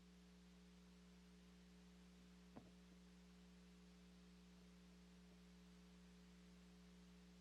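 Near silence: a faint steady electrical hum, with one soft click about two and a half seconds in.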